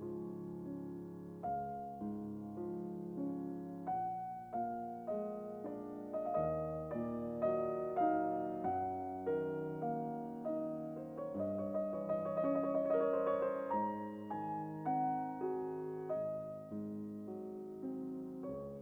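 Background music: solo piano playing a slow, gentle melody, with a fluttering run of quick repeated notes about two thirds of the way through.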